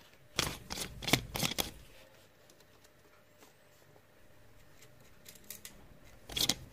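Small metal hex nuts being unscrewed by hand from the potentiometer shafts of a vintage 8-track car stereo and set down on a wooden table: a few quick clicks and scrapes in the first two seconds, then another short cluster of clicks near the end.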